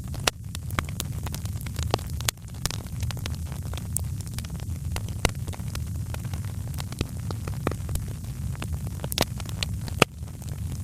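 Wood fire crackling in a fireplace: irregular sharp pops and snaps over a steady low rumble, with a few louder pops, the loudest near the end.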